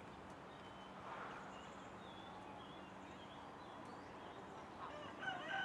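Faint outdoor background with small birds chirping now and then, the chirps a little louder near the end.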